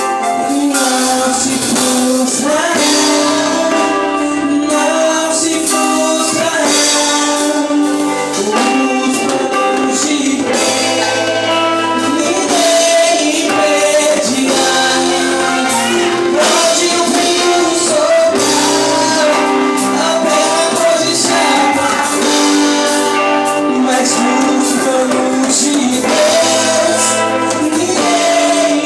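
A live worship band playing, with voices singing a Portuguese praise song over it.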